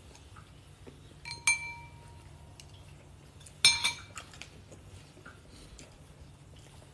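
Metal spoon clinking against a ceramic bowl twice, about two seconds apart, each clink ringing briefly; the second is the louder.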